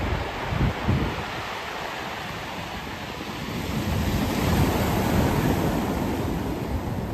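Surf breaking and washing up a cobblestone beach, a steady rush that swells about four seconds in as a wave comes ashore. Two low wind buffets hit the microphone near the start.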